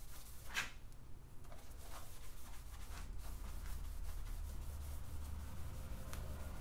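Blue shop towel wetted with brake cleaner rubbing around a freshly honed cylinder wall of a 5.3 LS V8 block, faint wiping strokes over a low steady hum.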